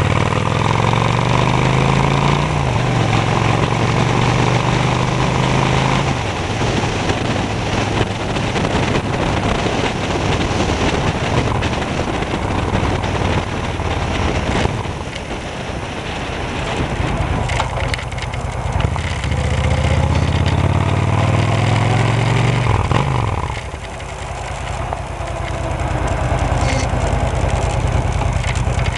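Motorcycle engine running under way, its pitch climbing and settling several times as the rider works the throttle and gears, then falling a little after twenty seconds as the bike slows.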